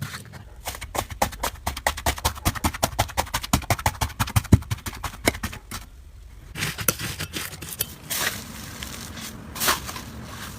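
Slime being squeezed and worked by hand, giving a quick run of small sticky clicks and pops, about five a second, for the first five seconds. After a short pause it goes on as looser crackling and squishing.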